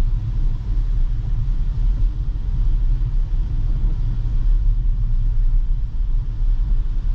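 Steady low road rumble of an electric Tesla's tyres on a wet road, heard inside the cabin while driving, with a faint hiss of heavy rain.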